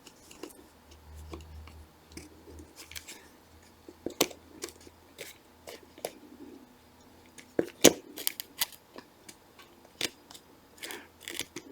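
Scattered small metal clicks and taps of a paperclip and small hand tools handled against a bicycle shifter's metal parts while trying to work a circlip loose, with one sharper click a little before eight seconds in.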